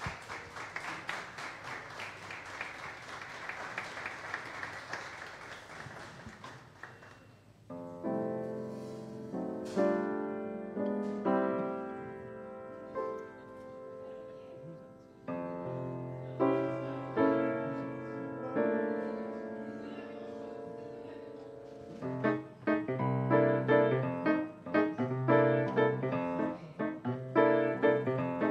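Jazz played on an acoustic grand piano: chords and runs, with low bass notes joining about halfway and the playing growing louder and busier near the end. Before the piano comes in, about seven seconds hold only a hissing noisy wash.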